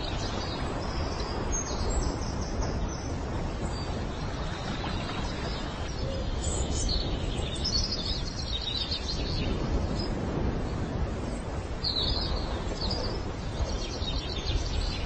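Steady outdoor background noise with scattered high-pitched bird chirps in short bursts, several times through the stretch.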